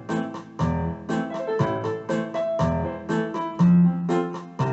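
Background music: a keyboard melody of quick struck notes over lower bass notes.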